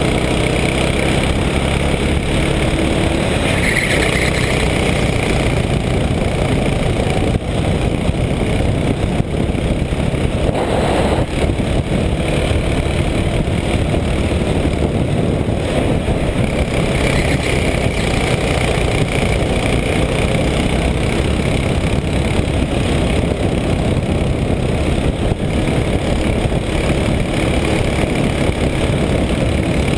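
Racing kart engine running continuously at race pace, heard onboard from just behind the driver, loud and steady, with its note shifting as the kart goes through the corners.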